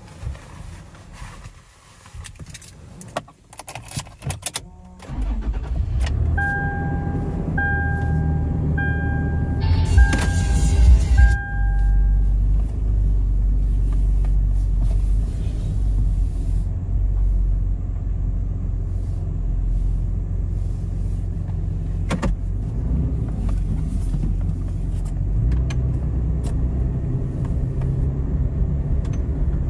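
Clicks and key rattles in a car cabin, then the car's engine is running from about five seconds in, with a dashboard warning chime beeping five times at an even pace and a brief loud rush of noise partway through. After that the engine runs steadily as the car drives off.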